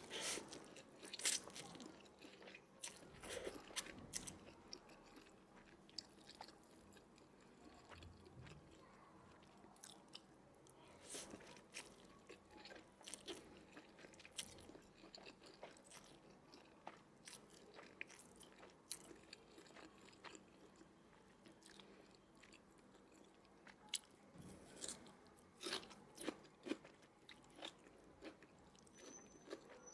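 Close-miked person eating mixed noodles: wet chewing and biting with sharp, scattered clicks that come in clusters, separated by quieter stretches.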